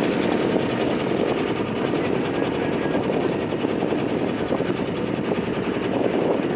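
Motorboat engine running steadily with a rapid, even beat.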